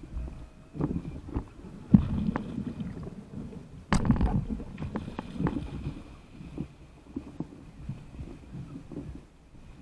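Water sloshing and slapping against a paddle board, with irregular splashes and one sharp knock about four seconds in.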